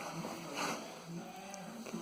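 Quiet background music with a simple melody, and a brief scrape about half a second in.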